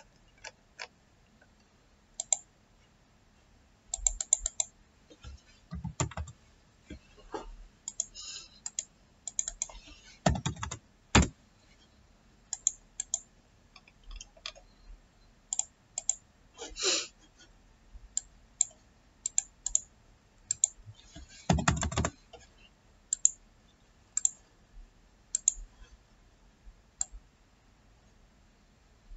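Computer keyboard typing and mouse clicks: scattered single clicks and short runs of keystrokes, with a few duller knocks along the way.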